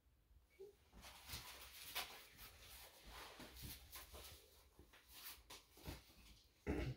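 Faint rustling and handling noises of a fabric blood pressure cuff being picked up and unfolded, with a short, louder thud near the end.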